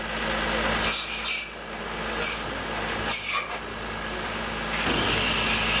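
Olive harvesting machine running: a steady low hum under a rasping mechanical noise that surges briefly about one, two and three seconds in, then rises and holds from about five seconds in.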